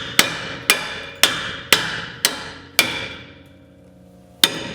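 Hammer blows on a stuck brake rotor of a Mazda Miata: six hard strikes about two a second, each followed by a ringing tail, then a pause and one more strike near the end. The rotor is seized on the hub and being knocked loose.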